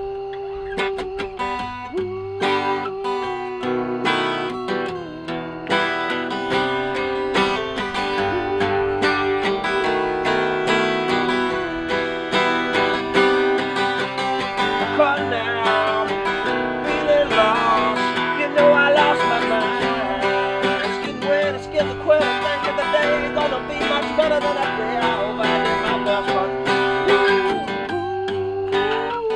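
Two acoustic guitars playing together, strumming chords and picking single notes in an instrumental passage without singing.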